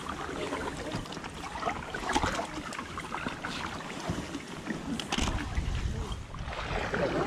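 Canoe paddles dipping and pulling through canal water beside an inflatable kayak: irregular small splashes and drips. A low wind rumble on the microphone sets in about five seconds in.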